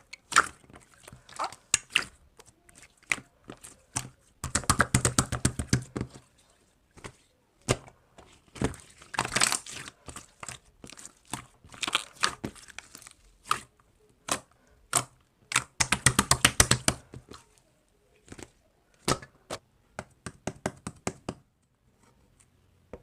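Slime being squished and poked by hand, giving irregular sharp pops and clicks with denser runs of crackling several times.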